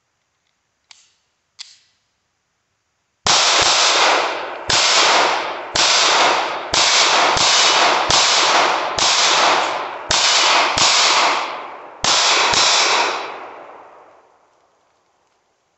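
Handgun firing about a dozen shots, roughly one a second with some quick doubles, each followed by a long echo that runs into the next and dies away about two seconds after the last. Two small clicks come about a second in, before the shooting starts.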